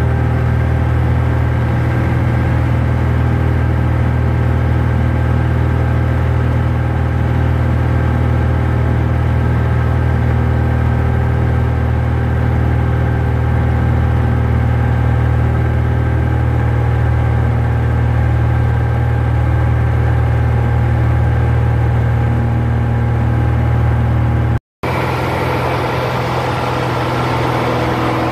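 Cessna 172's engine and propeller droning steadily in flight, heard inside the cockpit. The sound cuts out for an instant about 25 seconds in, then returns with a little more hiss.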